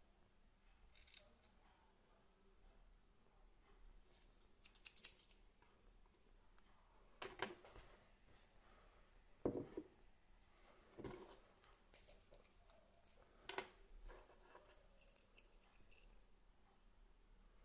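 Faint handling sounds: scissors snipping cotton wick, then a scattering of light clicks and knocks as the scissors and tool are handled on a wooden desk. The loudest is a single knock about halfway through.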